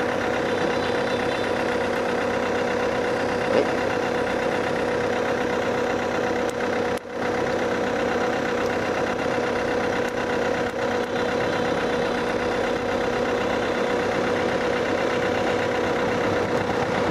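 Engine idling steadily, with a brief dip in level about seven seconds in.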